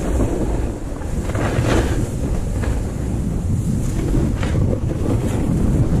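Wind buffeting the microphone of a snowboarder's action camera, over the hiss of a snowboard riding through deep powder snow, swelling briefly several times as the board turns.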